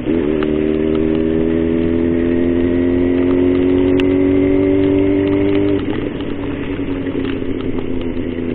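Yamaha XJ6's 600 cc inline-four engine under way. It dips briefly at the start, as in a gear change, then pulls with a steadily rising pitch as the bike speeds up. About six seconds in, the throttle is eased off and the engine drops to a lower, quieter run.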